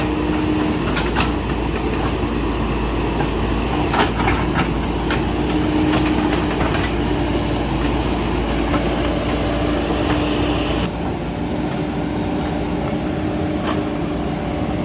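Diesel engine of a backhoe loader running steadily under work, with a few sharp knocks, the clearest about four seconds in.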